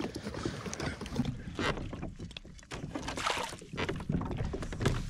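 Irregular knocks, clatters and handling noise aboard a kayak as a small largemouth bass is being landed.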